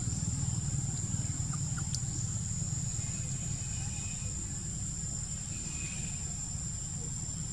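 Steady outdoor ambience: a continuous low rumble, with a thin unbroken high tone above it and a few faint ticks.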